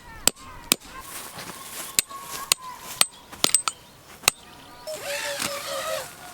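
A string of sharp, irregularly spaced metallic clinks and taps, some ringing briefly. Near the end a short high-pitched voice-like sound rises and falls.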